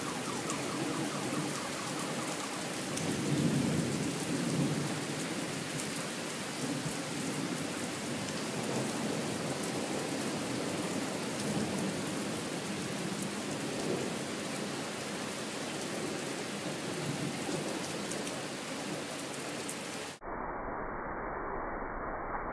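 Heavy rain pouring steadily in a thunderstorm, with thunder rumbling low and loudest a few seconds in. About twenty seconds in, the sound cuts abruptly to a duller, muffled noise.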